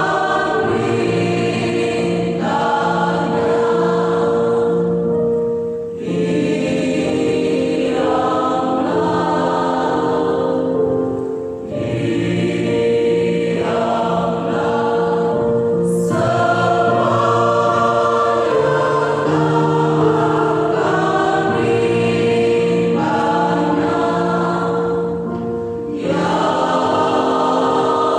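Church choir singing a slow gospel song in harmony, held chords in long phrases with short breaks between them.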